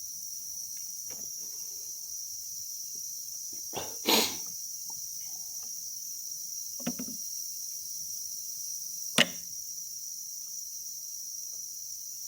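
A steady high-pitched whine, with three short knocks: one about four seconds in, a smaller one near seven seconds, and a sharp one just after nine seconds.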